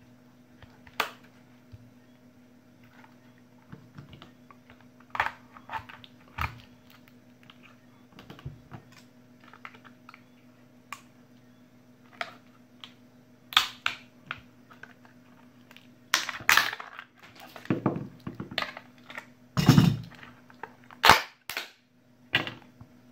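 Plastic shell of a laptop battery pack cracking and snapping as it is pried apart with a screwdriver and pliers. The clicks and cracks come irregularly, then thicker and louder in the last several seconds as the case splits open.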